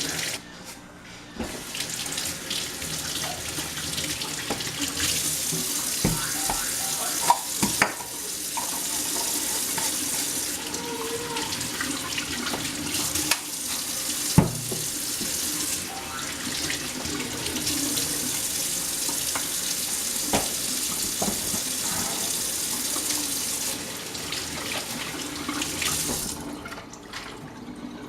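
Kitchen tap running into a sink, with a few sharp knocks and clinks of things handled in the sink. The water comes on about a second and a half in and shuts off a couple of seconds before the end.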